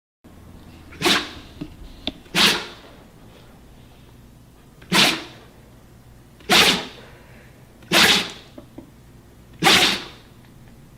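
A husky sneezing six times, each a short, sharp burst of breath, one to two and a half seconds apart.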